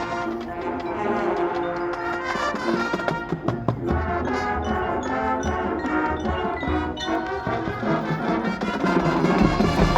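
High school marching band playing, the brass section holding sustained chords, with drum and percussion hits and a low drum rumble coming in about four seconds in.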